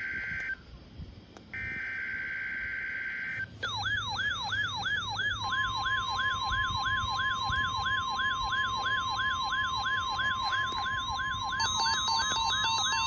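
NOAA Weather Radio weekly test alert. It opens with two buzzy bursts of SAME digital header data. Then a weather-radio receiver's siren-like alarm sweeps over and over, about three times a second, and about two seconds later the steady 1050 Hz warning alarm tone joins it; near the end a second, faster beeping alarm pattern comes in.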